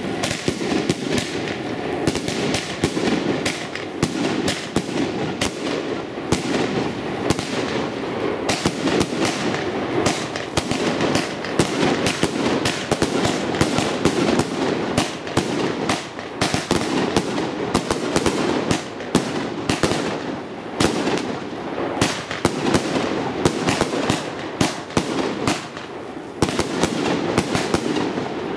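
Epic Fireworks Bunker Buster multi-shot firework cake firing, shot after shot in quick succession, launches and bursts overlapping into a continuous barrage.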